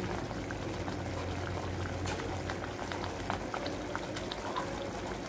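Spiced tomato-onion gravy boiling in a pan, a steady bubbling with many small pops.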